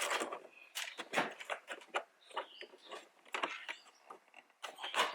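Irregular plastic clicks, taps and rustles of hands working small wiring connectors and their cable inside a car door's handle-bowl opening.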